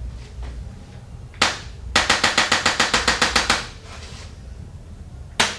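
Radial shockwave therapy device firing pulses: one sharp click, then a fast even run of clicks at about ten a second for a second and a half, and another single click near the end.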